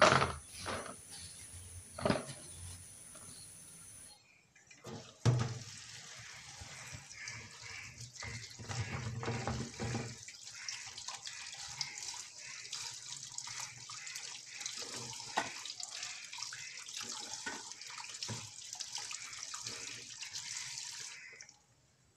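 A few knocks and rustles as okra pods are handled in an empty plastic bowl. Then a kitchen spray tap runs into the plastic bowl of okra in a steel sink while hands swish and rub the pods. The water stops shortly before the end.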